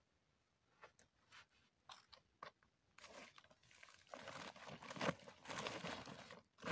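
Cloth and woven plastic sacks being handled and crumpled: a few light crackles, then from about halfway through a steady irregular rustling and crinkling.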